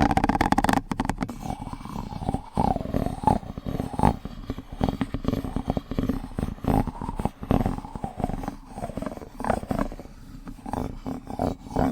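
ASMR spoon trigger: close-miked wet mouth sounds on a spoon, a dense run of quick clicks, smacks and sucks with no pauses.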